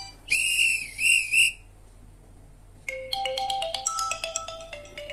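Tecno Camon 20 smartphone's loudspeaker playing ringtone tones at raised volume: three short whistle-like chirps in the first second and a half, then after a pause a quick run of chiming notes.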